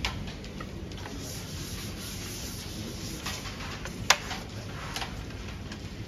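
A few light clicks of carrom pieces on the board as the coins are settled in the centre and the striker is placed. The sharpest click comes about four seconds in, over steady hall noise.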